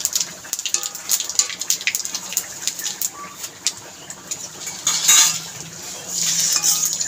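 A metal spatula scraping and clinking against a kadai while bay leaves and whole seeds sizzle and crackle in hot oil. There is a louder scraping stir about five seconds in and another shortly after six seconds.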